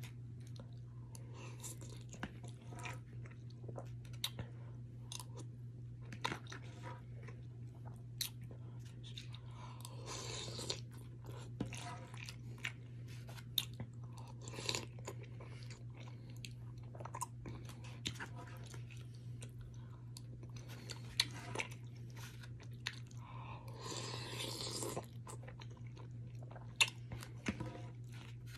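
A person chewing Flamin' Hot Cheetos mac and cheese close to the microphone, with many short, irregular mouth clicks. A steady low hum runs underneath.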